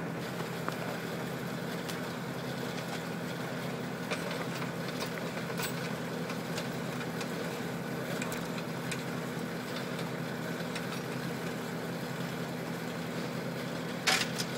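Tractor engine running steadily at an even idle, with a short, loud clank about a second before the end.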